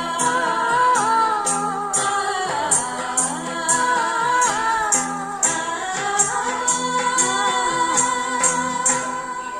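A Tamil song played back from cassette: a wavering melody line over a steady low drone, with a high percussion hit about twice a second.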